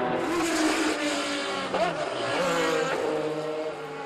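Racing car engines at high revs, several engine notes overlapping. One note jumps up sharply and falls back a little under two seconds in, and the sound starts to fade near the end.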